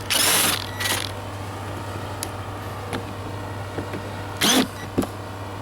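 Cordless drill-driver running in short bursts as it backs screws out of a camper roof vent: one burst of about half a second at the start, a brief one about a second in, and another near the end.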